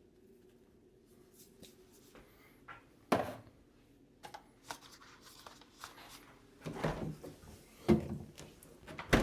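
Kitchenware being handled on a counter: light clatter and several separate sharp knocks, the loudest about three seconds in and near eight seconds.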